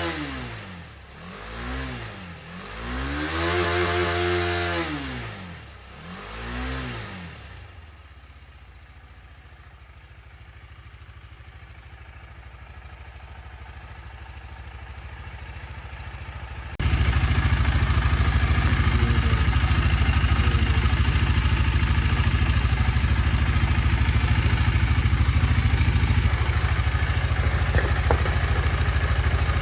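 KTM Duke 250's single-cylinder engine, started after a year dead on a freshly recharged battery, revved in several quick throttle blips, then idling. About seventeen seconds in, the idle turns suddenly louder and stays steady.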